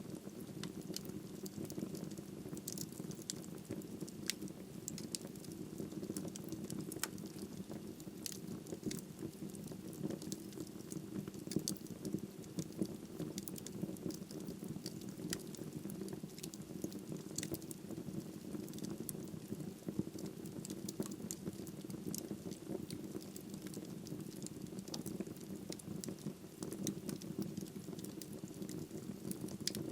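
Wood fire burning in a fireplace: frequent sharp crackles and pops of the burning logs over a steady low rush of the flames.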